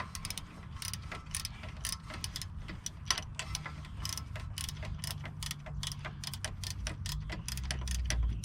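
Ratchet wrench clicking in quick, uneven strokes as it backs out the rear brake caliper's 14 mm slide pin bolt after it has broken loose, over a low rumble.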